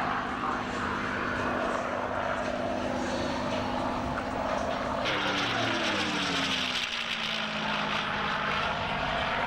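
Aircraft engine running steadily, then a low flypast about five seconds in: a rush of noise with the engine note dropping in pitch as the aircraft passes.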